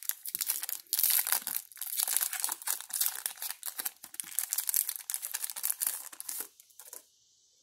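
Foil trading-card pack wrapper crinkling and tearing as it is ripped open by hand. The crackling stops suddenly about a second before the end.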